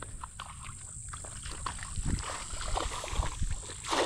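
A cast net thrown into shallow water: small sloshing splashes of wading feet and net, then the weighted net lands with a splash near the end. Wind buffets the microphone throughout.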